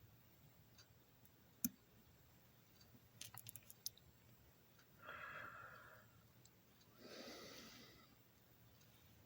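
Quiet bench work: one sharp click, then a quick run of small clicks about three seconds in, as small parts are handled. Two soft breaths follow, a few seconds apart.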